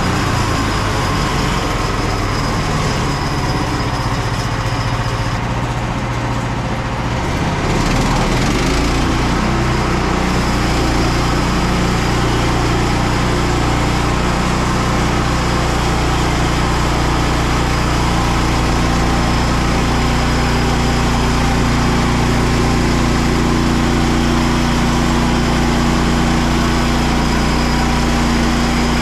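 Petrol engine of a Frontier OS27 portable bandsaw mill running steadily at high speed as the band blade saws through an ash log. About eight seconds in, the engine note shifts and the sound gets a little louder, then holds steady.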